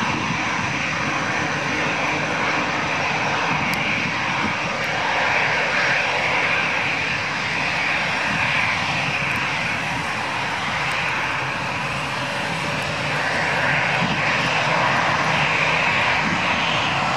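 Twin Pratt & Whitney PW4158 turbofans of an Airbus A300B4-622R freighter running at low taxi thrust as the aircraft turns and lines up on the runway. The engine noise is a steady rush, swelling slightly twice.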